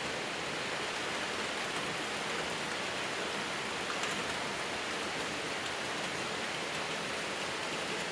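Steady rain falling, a constant hiss with faint patter of drops.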